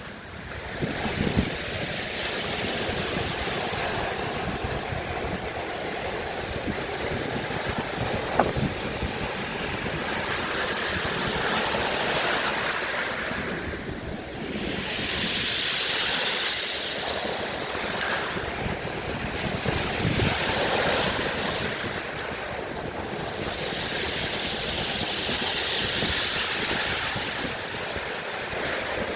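Heavy surf from a storm-driven sea breaking and washing over shoreline rocks, rising and falling in surges every few seconds, the sea raised by an approaching hurricane. Wind buffets the phone's microphone.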